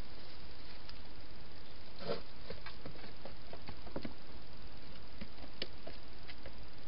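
Scattered small clicks and scuffs of a hedgehog moving about in a plastic feeding box, coming to the food bowls, over a steady hiss. The clicks are thickest about two to four seconds in and come again more sparsely near the end.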